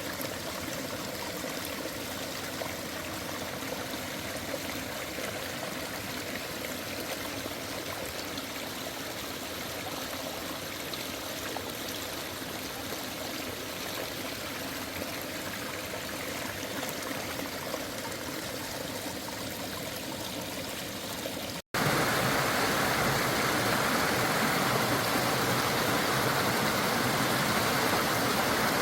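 A stream flowing over rocks, making a steady rushing water noise. About three-quarters of the way through it cuts abruptly to a louder, fuller rush of water.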